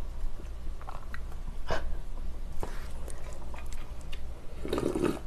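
Mouth sounds of eating spicy noodles: chewing with a few short, wet clicks, then sips of broth drunk straight from the tipped-up metal bowl.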